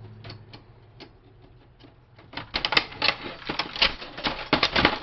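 Plastic and metal parts of a printer clicking and clattering as it is pulled apart by hand: a few light clicks, then about halfway in a quick, dense run of sharp clatters.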